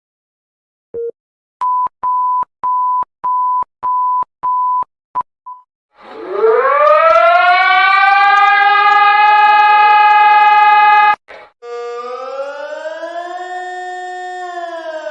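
Emergency alert alarm sequence: one short beep, then a run of higher beeps that get shorter toward the end. A siren then winds up in pitch and holds steady until it cuts off suddenly about eleven seconds in, and a second siren tone follows that slowly rises and falls.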